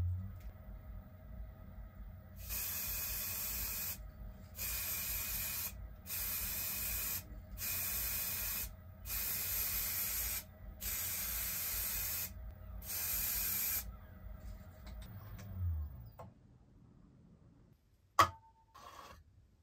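Aerosol spray can hissing in seven bursts of about a second each as black paint is sprayed onto an ash platter to ebonise it, over the steady low hum of the woodturning lathe, which stops near the end. A single sharp click follows.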